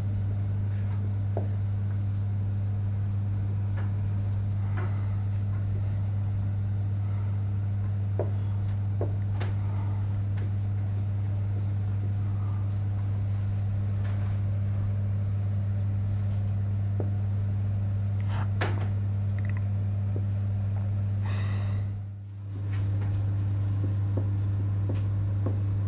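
A steady low electrical hum with a couple of even overtones, dipping briefly once near the end. Over it are faint scattered taps and scrapes of a pen writing on a board.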